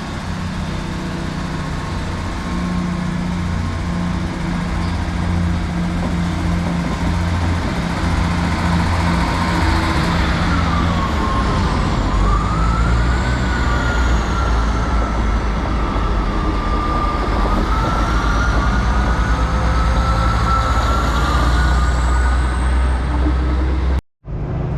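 Diesel train engine running loudly and steadily, with a whine that slowly rises and falls in pitch over the drone.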